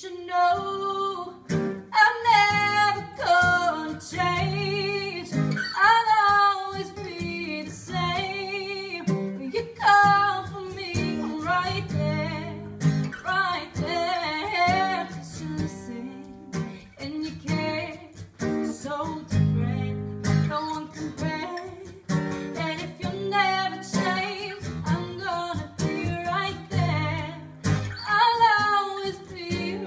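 A woman singing a pop song, accompanied by a strummed acoustic guitar.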